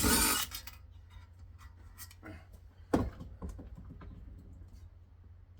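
Hands handling metal heatsink parts during disassembly: a brief loud burst of noise at the start, a sharp knock about three seconds in, then light rubbing and scraping.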